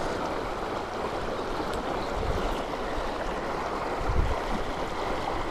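Shallow river running fast over rocks: a steady rush of water, with a brief low rumble about four seconds in.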